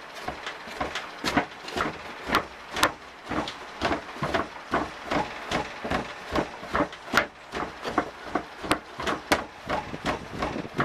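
Red brick tamping beetle-rearing substrate down hard in a plastic case, packing it firmly: repeated dull thumps, about two to three a second, uneven in strength.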